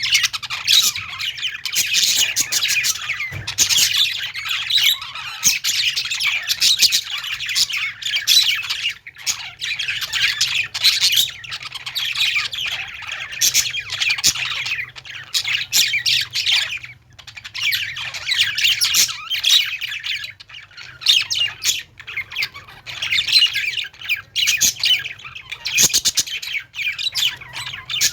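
A flock of budgerigars and lovebirds chirping and squawking all together: a dense, continuous chatter of overlapping high calls with only brief lulls.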